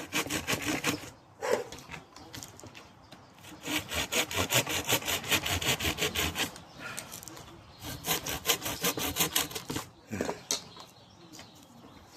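Saw blade cutting through birch bark on a log in quick back-and-forth strokes. The strokes come in three bouts, with short pauses about a second and a half in and again about seven seconds in, then trail off near the end.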